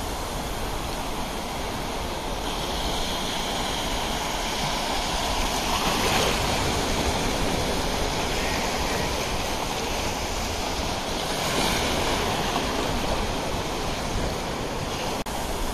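Sea surf washing on the beach: a steady rush of breaking waves that swells louder twice, about six and twelve seconds in.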